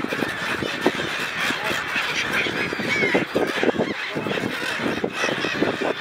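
A flock of gulls calling, many short squawks and cries overlapping without a break.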